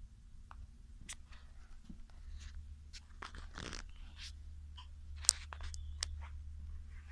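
Handling noise from a handheld camera moving about inside a coach: scattered clicks, rustles and light knocks, with one sharp click about five seconds in. Under them is a low steady hum that gets slightly louder about two seconds in.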